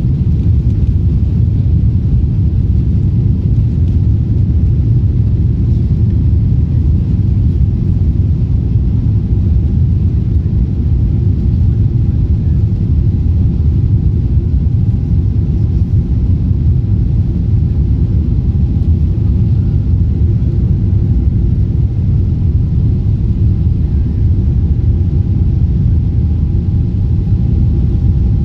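Steady low rumble inside the cabin of a Boeing 777-300 airliner taxiing, its jet engines at low thrust and the aircraft rolling, with a faint steady whine over it.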